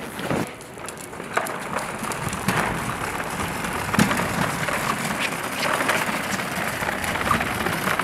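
A wheeled stunt flying rig on casters rolling across a concrete floor: a steady rolling rumble with scattered clicks and knocks, slowly growing louder.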